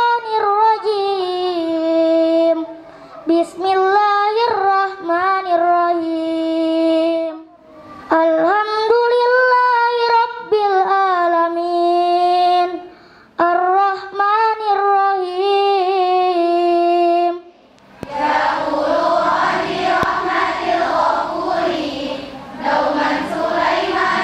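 A child's solo melodic Quran recitation through a microphone, in long held phrases with short breaths between. About 18 seconds in it gives way to a group of girls' voices chanting together in unison.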